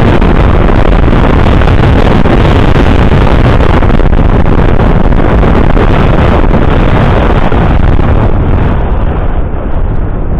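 Loud, steady rush of wind buffeting the microphone, easing slightly near the end.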